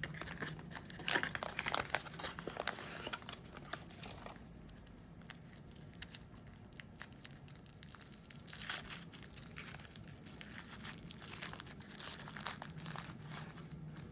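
Wrapper of a little citrus pu'er tea ball crinkling and tearing as it is taken off, in a run of rustles over the first three seconds and another short burst about nine seconds in, with faint handling rustles between.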